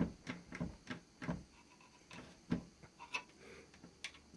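Light, irregular clicks and taps of small parts being handled, loudest at the start and about halfway through.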